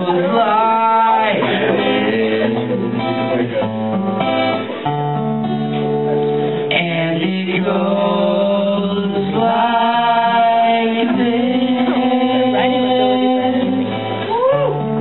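A man singing into a microphone over an acoustic guitar playing chords, performed live.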